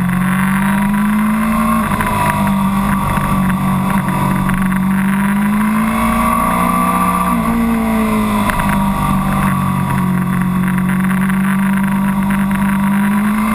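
Suzuki GSX-R600 K7's inline-four engine heard from the rider's seat at road speed, its pitch rising and falling gently with the throttle through the bends, with a short dip and recovery about seven seconds in. A steady rush of wind runs underneath.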